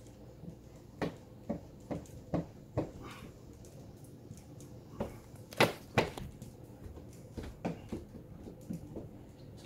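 An uneven series of short knocks and taps as a hand squeegee works window film onto a small glass pane. The two loudest come about halfway through, half a second apart.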